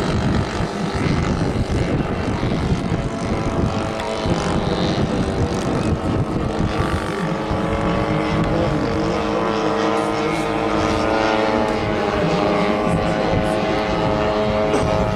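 Propeller-driven biplane's piston engine droning overhead at a steady, loud level, its pitch shifting slightly about halfway through.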